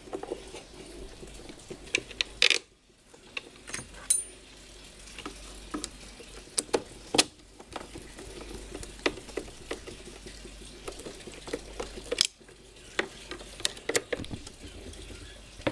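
Bolts being threaded and tightened by hand and with a screwdriver on the outlet flange of a Hitachi automatic water pump's housing: irregular light metallic clicks, taps and scrapes, with a louder clatter about two and a half seconds in.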